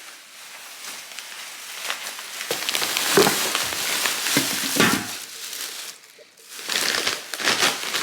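Grocery bags and packaging rustling and crinkling as they are handled, with a few soft knocks.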